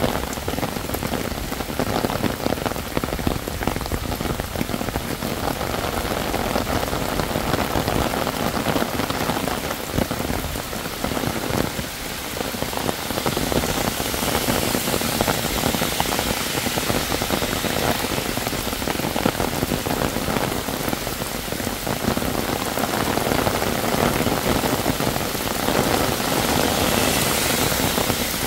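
Heavy rain falling, a dense steady patter of drops on surfaces. The hiss turns brighter from about halfway through.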